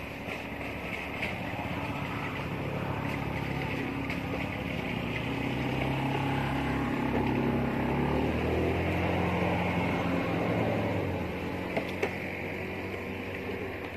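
A motor vehicle's engine passing by, a steady hum that grows louder toward the middle and fades away near the end.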